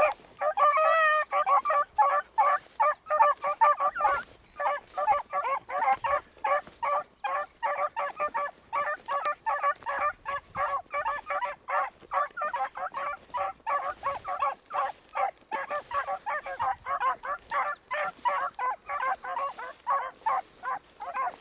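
Pack of beagles baying on a rabbit's scent trail, a rapid string of short, high yelps, about two to three a second, with several dogs' voices overlapping.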